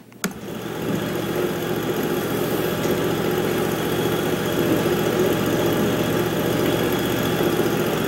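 Wood-Mizer portable band sawmill's engine running steadily. It comes in abruptly just after the start and builds to a steady run within about a second.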